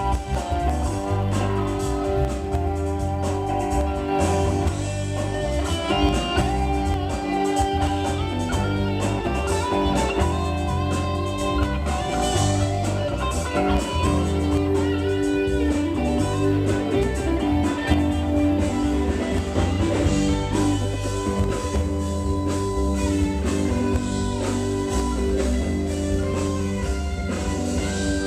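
Rock-blues band playing, electric guitar leading over bass and drums.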